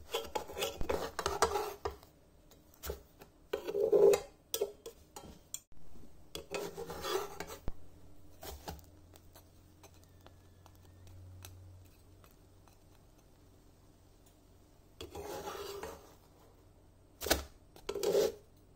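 Plastic spatula scraping against a nonstick frying pan as it is slid under a flatbread and flips it, in several short bursts of rubbing with quiet gaps between. There is a sharp knock near the end.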